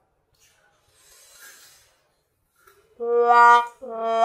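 Near quiet with a faint brief hiss, then about three seconds in a wind instrument starts playing long held notes: one full note and the start of a second.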